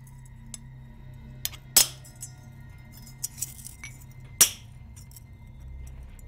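Hammer striking a chisel to cut rune lines into a brass-coloured metal strip: two sharp, ringing metal strikes about two and a half seconds apart, with a few lighter taps between.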